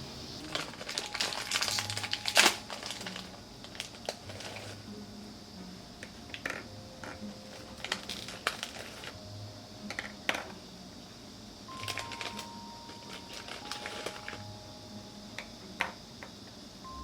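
Close-up eating sounds: a quick run of crisp crunches and clicks about one to three seconds in, then scattered single bites and chews.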